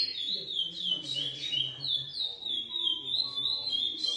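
Chestnut-bellied seed finch (curió) singing: a fast, unbroken run of short whistled notes, each sliding down in pitch.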